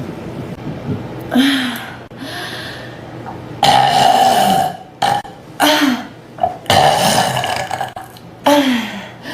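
A woman burping on purpose, about five burps in a row. Two of them are long and drawn out, and the others are short.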